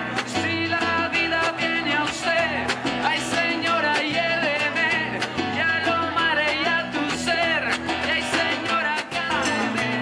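Live Latin-style band music: a man singing over strummed nylon-string acoustic guitar, with percussion keeping a steady beat.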